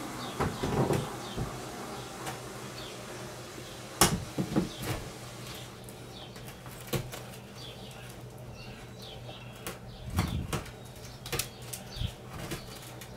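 Demolition of an old wooden porch roof with a pry bar: irregular knocks, scrapes and cracking of old boards, with a sharp crack about four seconds in, the loudest.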